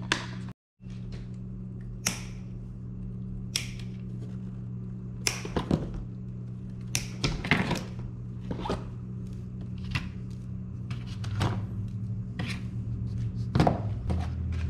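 Scattered light knocks, clicks and rustles of a plastic consumables case and a coiled rubber torch lead being handled in a cardboard box, over a steady low hum.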